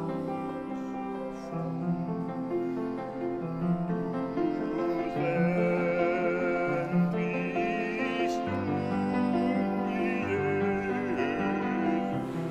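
Upright piano playing a slow, sustained accompaniment. From about five seconds in, a voice sings a melody with vibrato over it.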